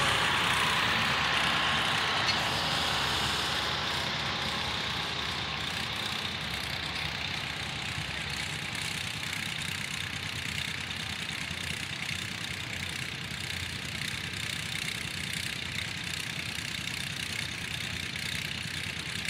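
John Deere 60 tractor's two-cylinder engine idling, mixed with other tractor engine noise. It is louder for the first few seconds, then settles to a steady level.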